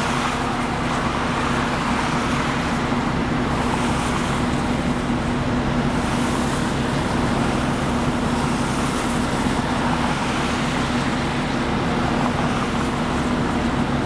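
Steady highway traffic: cars and trucks passing at speed on a multi-lane interstate, heard from above, with a constant low hum underneath and a few faint swells as vehicles go by.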